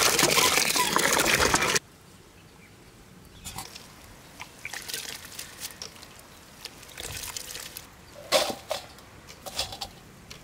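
Water pouring into a steel pot of dried tiny shrimp, cutting off suddenly just under two seconds in. Then quieter wet rustling and sloshing as hands rub the shrimp clean in the water, with a few louder splashes near the end.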